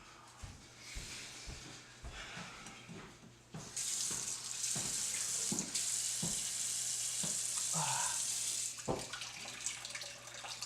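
Water running from a tap, turned on sharply about four seconds in and off about five seconds later, with scattered light knocks and clinks around it.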